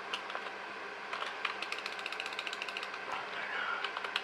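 Typing on a computer keyboard: a quick, irregular run of key clicks, with a faint steady hum under it.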